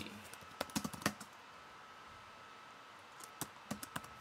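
Computer keyboard keystrokes: a short run of clicks about a second in, then a pause, then a few more clicks near the end as the file is saved. A faint steady tone hums underneath.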